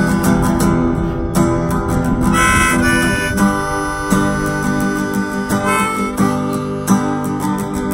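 Harmonica in a neck rack playing a melody over strummed acoustic guitar, in the instrumental opening of a song before any singing.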